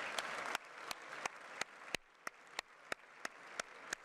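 Audience applause in a large parliament chamber: a dense round of clapping that thins out within the first second into evenly spaced single claps, about three a second.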